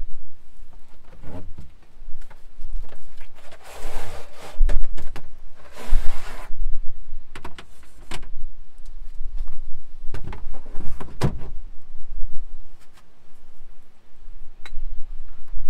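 Camping gear being moved and handled: scattered knocks and clicks, with two longer scraping noises about four and six seconds in and a few heavier knocks about ten seconds in.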